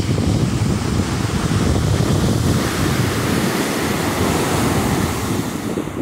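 Ocean surf on a sandy beach: a wave breaks and its foam rushes up the shore with a swelling hiss that drops off near the end. Underneath is a steady low rumble of wind buffeting the microphone.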